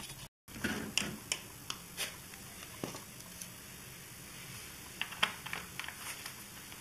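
Scattered light clicks and taps of hand handling, with a tight cluster about five seconds in as the oil filler cap is set back into a motorcycle's crankcase cover and turned by hand.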